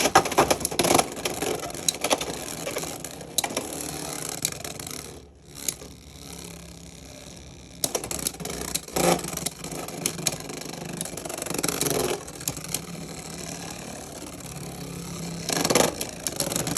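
Beyblade X tops spinning and colliding in a plastic stadium, with continuous scraping and rattling and repeated sharp clacking hits. The hits are thickest near the start, the sound dips briefly about five seconds in, and louder hits return later.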